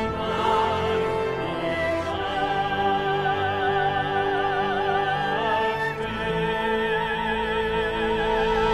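A soprano sings long, held notes with wide vibrato over a sustained orchestral accompaniment, in the manner of classical opera. The notes change pitch about two seconds in and again a little after halfway.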